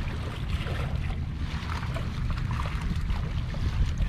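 Wind rumbling on the microphone over the wash of seawater, with small splashes and ticks.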